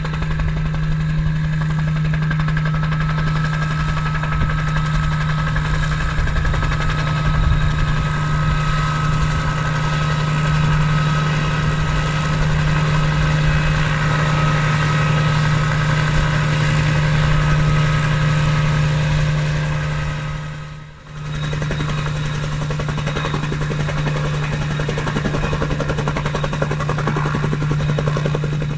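Sioux AH.1 helicopter (a Bell 47 with a piston engine) flying in and coming to a hover to land, a steady engine-and-rotor drone with a low hum throughout, dropping out briefly about three quarters of the way through.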